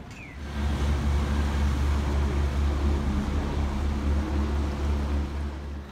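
An engine running steadily with a low hum. It starts sharply about half a second in and cuts off just before the end.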